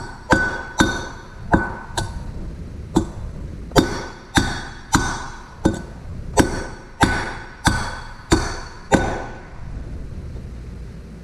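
Hammer blows on an old bearing laid on top of a new one, driving the new bearing into a 1995 Honda Foreman 400's front differential case. About fourteen sharp, ringing metallic strikes, one or two a second, stopping about nine seconds in.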